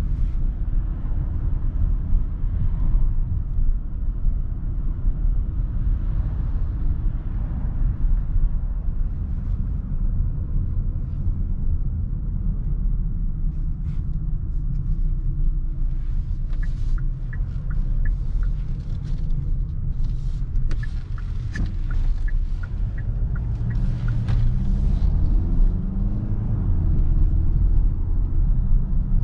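Kia Sorento's 2.2-litre CRDi diesel engine and road noise while driving: a steady low rumble, with scattered short clicks in the middle and the engine note rising near the end as the car accelerates.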